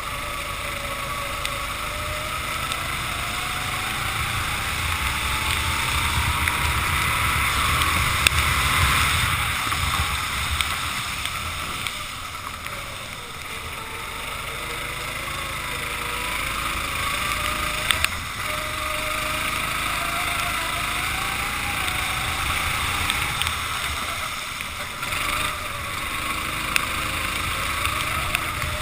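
Racing kart engine on track, its pitch climbing slowly as it accelerates down straights and dropping back when the throttle is lifted, several times over. A steady hiss of wind and spray from the wet track runs underneath.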